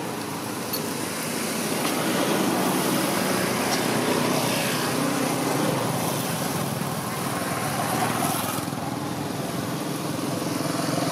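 A small motor engine running steadily, its pitch shifting slightly now and then.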